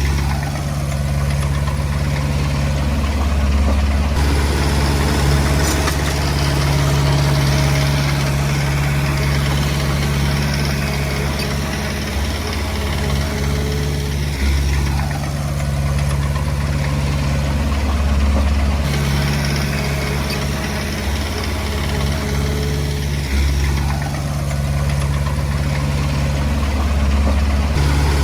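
Diesel engine of a Komatsu D20P bulldozer running steadily, its note shifting briefly every several seconds.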